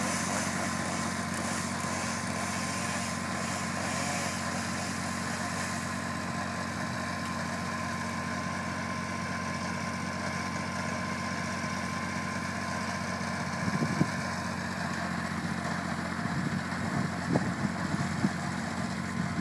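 Jensen 530XL tracked wood chipper's engine running steadily while it pulls a tree over. A few sharp knocks and cracks come about two-thirds of the way through and several more near the end.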